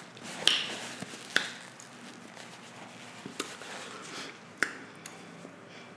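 A few sharp little clicks, about four spread out, with soft rustling in between, from hands wiping on a paper napkin and unfastening earrings.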